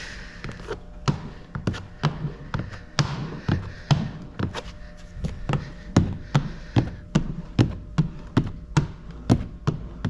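Hand squeegee working over wet window tint film on a car door glass, its strokes giving a series of short taps and knocks, uneven at first, then about two a second.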